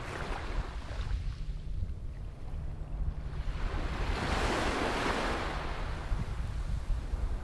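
Small waves washing up onto a sandy beach, one wash swelling about halfway through and draining back, with wind rumbling on the microphone.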